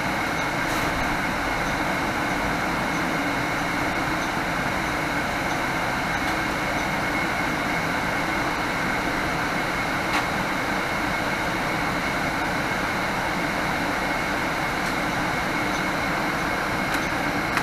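Inside a 2018 Nova Bus LFS diesel transit bus on the move: a steady drone of engine and road noise with a faint, steady high whine, and a light click about ten seconds in.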